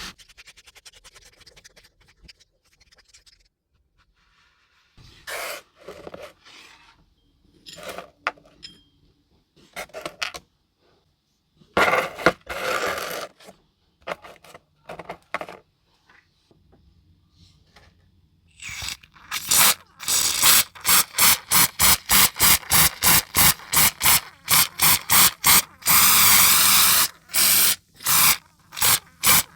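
Hand tool scraping a small diecast model car: a few scattered scrapes, then in the last ten seconds a fast run of back-and-forth strokes, about two to three a second.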